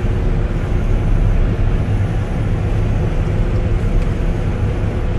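Self-propelled forage harvester running steadily as its corn head takes in standing corn for snaplage, heard from inside the cab: a constant low machine drone with a steady hum.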